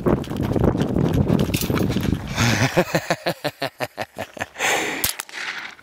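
Fast, rhythmic thumps of running footsteps, over wind and movement rumble, as a shooter runs up to the next firing position. Near the end come two sharp cracks.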